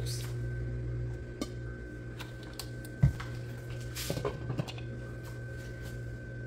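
Kitchen pot and utensils being handled over a steady low hum: scattered small clicks, one sharp knock about three seconds in, and a brief cluster of light clinks a second later.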